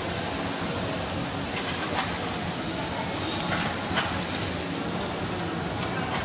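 Meat sizzling on a tabletop yakiniku grill as a steady hiss, over restaurant background noise, with a couple of light clicks about two and four seconds in.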